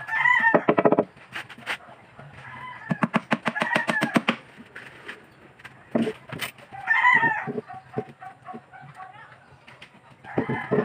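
Rooster crowing loudly about four times, with a few sharp knocks of a hammer on the plywood speaker box in between.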